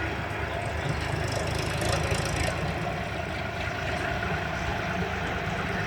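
Heavy diesel engine running steadily, a constant low drone without clear changes in speed.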